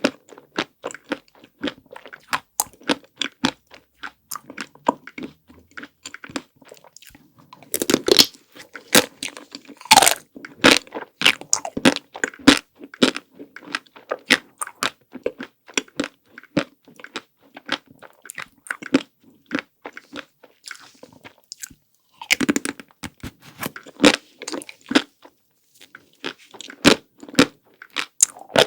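Close-miked eating of chocolate-coated ice cream: crisp crunches as the chocolate shell cracks, then wet chewing. The loudest bites come about 8, 10 and 23 seconds in.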